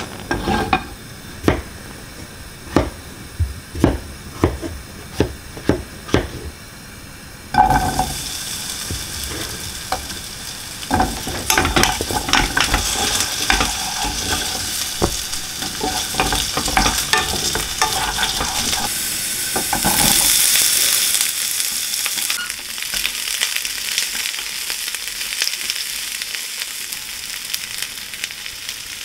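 A run of sharp knocks about half a second apart, then food goes into a hot pan and starts sizzling suddenly. The frying crackles under clicks of a utensil stirring, swells louder about two-thirds of the way through, and settles to a steady sizzle.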